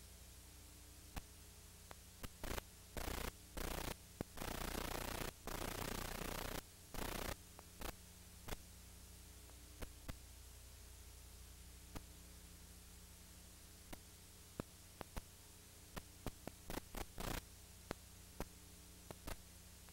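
Steady mains hum and hiss of an old videotape recording, broken by abrupt bursts of crackling static, the longest about two seconds, and scattered clicks.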